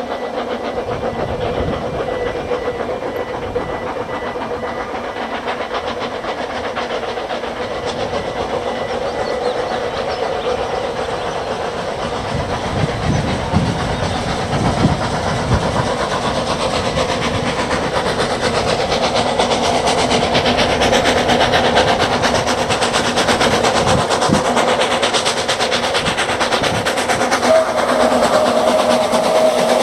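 Narrow-gauge steam train running, with a dense, steady clatter of wheels and exhaust that slowly grows louder as it nears. A steady whistle note comes in near the end.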